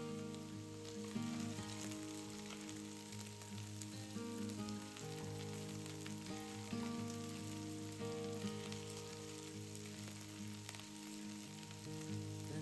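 Food frying in oil in a pan, with a steady sizzle and fine crackling, under soft instrumental background music.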